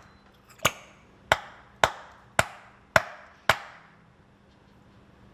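A stuck bottle of sweet chili sauce being smacked to get the sauce out: six sharp knocks, about two a second, stopping a little after three and a half seconds.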